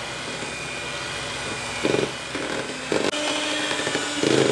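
Electric hand mixer (King) running at a steady speed, its beaters whisking runny chocolate cake batter, with a faint steady motor whine and a few short louder bumps.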